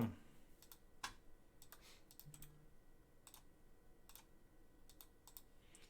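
Faint, scattered clicks and key taps at a computer, a dozen or so at irregular intervals, over near silence.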